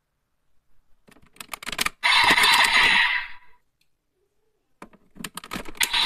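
Plastic clicks and clacks of Raise Buckles being pulled out of and slotted into a DX Desire Driver toy belt. A short, loud burst of electronic sound effect comes from the belt's speaker about two seconds in, and another starts near the end.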